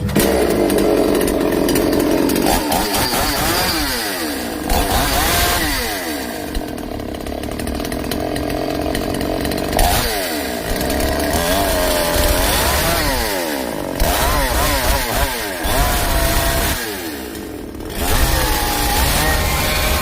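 Two-stroke chainsaw engine running with the throttle opened and released several times, its pitch rising and falling with each rev.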